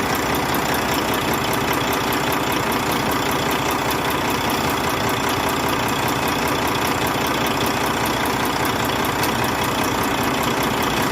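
Volvo D13 truck diesel engine idling steadily with a loud, fast, regular ticking. The mechanic suspects the valve clearance, and possibly a worn camshaft, as the cause.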